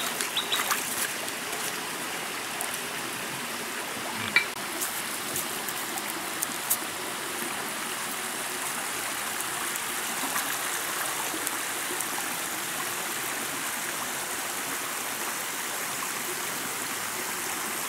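Shallow mountain stream running steadily over rocks and small cascades. A few short splashes in the first second, and a single sharp tap about four seconds in and another near seven seconds.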